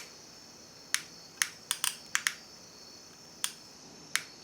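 Sharp, irregular clicks from a trigger-fed soldering gun as its trigger is pulled to feed solder out onto the joint, about nine clicks, several in quick succession.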